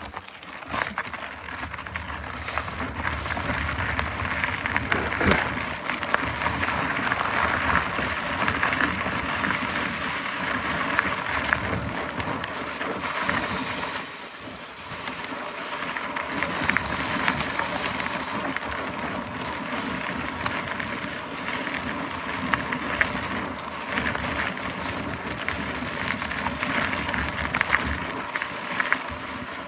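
Mountain bike ridden along a dirt trail: steady tyre noise over rough ground with many small clicks and rattles, dipping briefly about halfway through.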